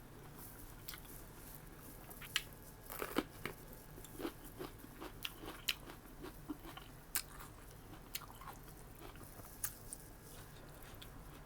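A person chewing and biting food close to the microphone, with irregular crunchy clicks and smacks, thickest in the middle stretch.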